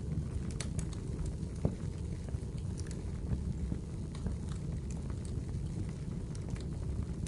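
Wood fire burning in a fireplace: a steady low rumble of the flames with scattered crackles and small pops, one louder pop a little under two seconds in.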